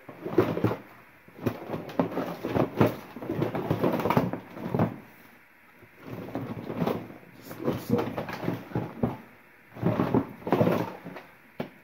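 Items being rummaged through and pulled out of a storage tote: repeated bursts of rustling and handling noise with occasional knocks.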